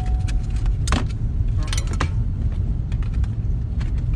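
A car seatbelt being pulled across and buckled: metallic jingling and sharp clicks, the strongest about one and two seconds in, over the steady low rumble of the car's engine and road noise. A steady warning tone sounds briefly at the start.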